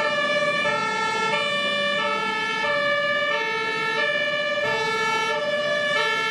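Electronic two-tone siren from a toy water cannon truck's sound module, alternating between a high and a low tone about every two-thirds of a second.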